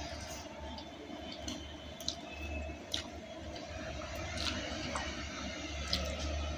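Close-miked eating of chilli oil noodles and fried egg: noodles slurped in, then chewing with wet mouth smacks and scattered short clicks, over a steady low hum.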